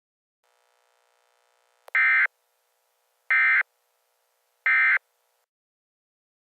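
Emergency Alert System end-of-message data bursts (the SAME "NNNN" code): three identical short electronic bursts, each about a third of a second long and a little over a second apart, marking the end of the alert. A faint hum and a click come just before the first burst.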